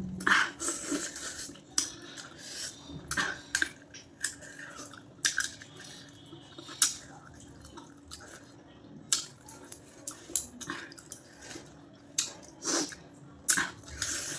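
Close-up eating sounds from a person eating goat-head curry with rice: irregular wet smacks and short clicks of chewing and mouthing food, coming every second or so.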